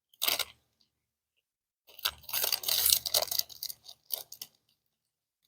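Eating noises: three short bursts of crunching and rustling, the longest about two seconds in, with dead silence between them.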